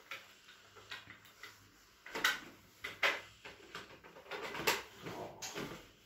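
Several short, soft clicks and knocks at irregular intervals during a chiropractic adjustment of a child's back on a padded treatment table, the clearest a little after two seconds in, at about three seconds and near four and a half seconds.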